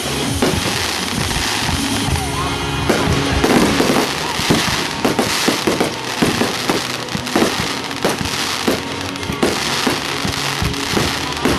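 Fireworks going off in a rapid string of bangs from about three seconds in, with a hissing crackle between them. Music plays underneath.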